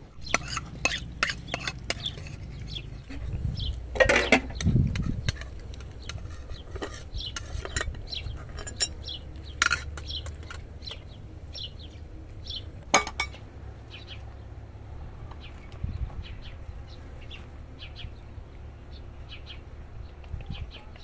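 Cutlery and dishes clinking: irregular sharp clinks of spoons knocking against bowls and plates, a few of them louder, with birds chirping in the background.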